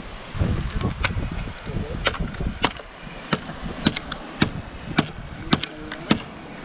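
Machete chopping a dry branch, sharp strikes at a steady pace of about two a second, starting about a second in.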